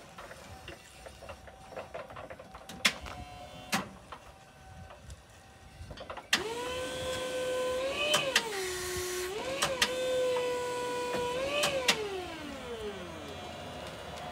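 Mitsubishi electric forklift's hydraulic pump motor whining as the forks lift a loaded pallet, starting about six seconds in; its pitch drops for a second, comes back up, then glides down as it stops near the end. Before it, a couple of sharp knocks as the truck moves into place.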